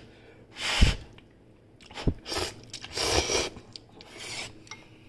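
A person slurping instant ramen noodles and chewing, in about four short, rasping slurps.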